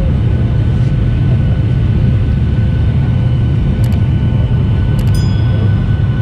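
Boeing 737-800's CFM56-7B turbofan engines running steadily, heard from the cabin: a deep, even rumble with a few steady tones above it. A couple of faint clicks come near the end.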